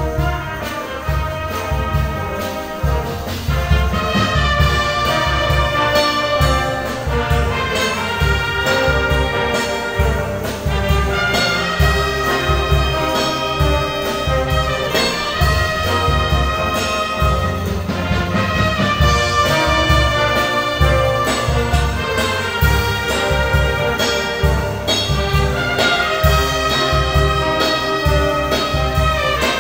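Wind band playing: brass and woodwinds, trumpets, trombones, saxophones and clarinets, in full harmony over a steady beat, growing a little louder about four seconds in.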